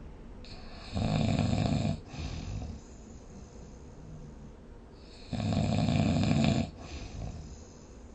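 A person snoring: two loud snores about four seconds apart, each about a second long and followed by a shorter, quieter sound.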